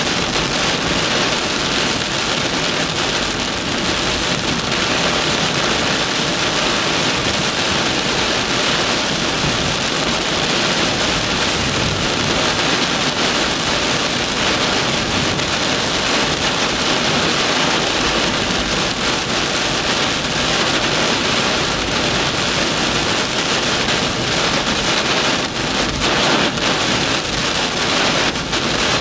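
Heavy rain beating steadily on a car's roof and windshield in a thunderstorm downpour, heard from inside the cabin.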